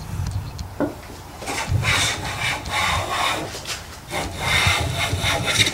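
Infill smoothing plane cutting shavings along the edge of a board: two long strokes of the iron through the wood, the first starting about a second and a half in, the second just past four seconds.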